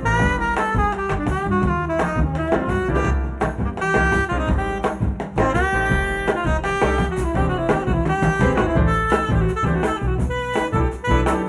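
Live jazz quartet: a tenor saxophone plays a lead line of quick, changing notes over grand piano, double bass and drum kit.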